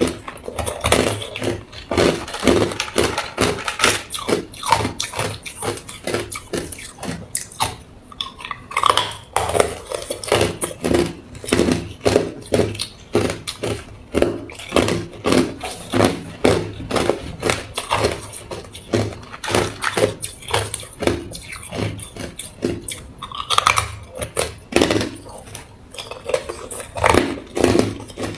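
A person biting and chewing hard ice cubes: a continuous run of sharp, crackling crunches, with loud bites coming about once a second.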